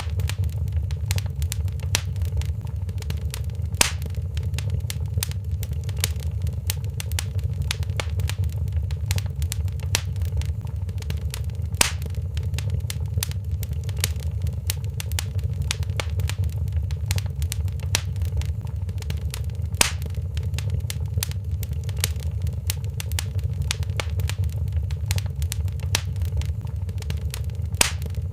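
Wood fire crackling in a fireplace: frequent small crackles and a few louder pops over a steady low rumble.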